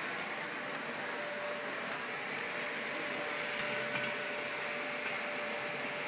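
Steady background hiss with a faint, steady high hum running through it, and a couple of faint taps about four seconds in.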